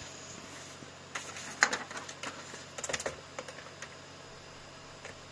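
Computer keyboard keys clicking in an irregular run of taps, with the sharpest tap about a second and a half in and a quick flurry near three seconds, over a faint steady hum.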